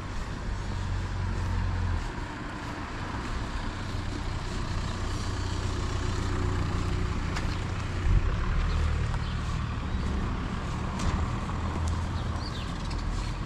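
Street traffic: a heavy vehicle's engine running with a steady low rumble, with a sharp knock about eight seconds in.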